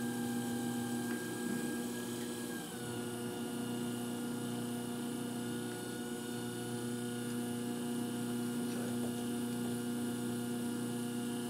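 Electric pottery wheel running under load while clay is centered: a steady motor hum and whine that drops slightly in pitch about three seconds in. Faint occasional clicks come from the wheel's bat wobbling on its bat pins.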